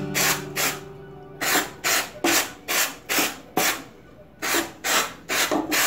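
Aerosol contact-cleaner spray hissing in short, quick squirts, about three a second, in runs broken by brief pauses, sprayed over a mixing console's circuit boards to blow off dust.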